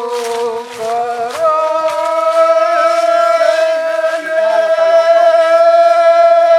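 Rongmei men's forest folk song: a man's voice holds a long, loud sung note. It steps up to a higher pitch about a second and a half in and is then held almost steady.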